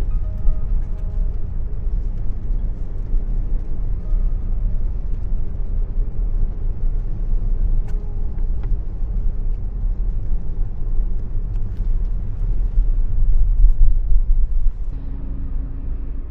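Low, steady driving rumble of a 2025 Mazda CX-30 with a 2.5-litre four-cylinder petrol engine, road and engine noise mixed. It swells for a couple of seconds near the end, then eases off.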